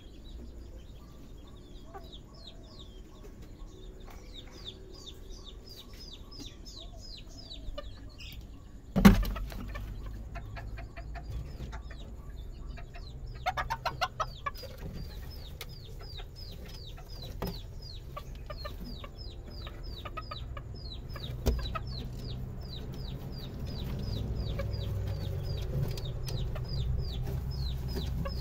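Serama bantam chickens calling: a long run of short, high cheeping notes repeated a few times a second, with a brief burst of clucking calls about halfway through. A loud thump about nine seconds in and a lighter knock later.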